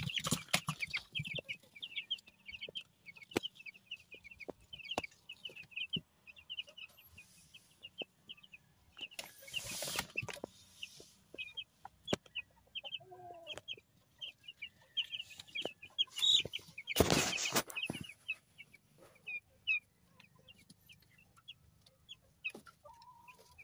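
A brood of week-old broiler chicks peeping constantly in short, high, rapid peeps. Two brief bursts of rustling noise break in, one about ten seconds in and a louder one a little past two-thirds of the way through.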